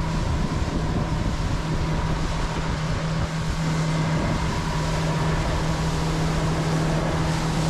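Outboard motor running at a steady cruising speed, a constant low hum, as a small open boat runs over calm water, with the rush of water from the hull and wake beneath it.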